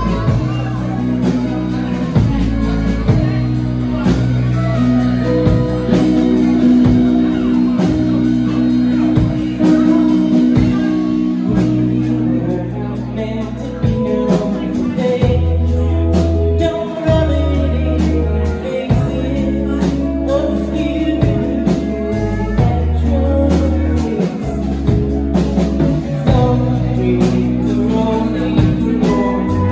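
A live band playing a country song: electric guitar, bass, keyboard and drums, with a singer.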